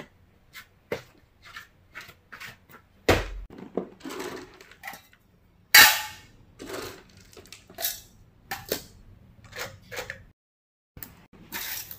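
Dry dog kibble rattling into and against a stainless steel bowl: a series of sharp clicks and clatters, with two louder clatters about three and six seconds in.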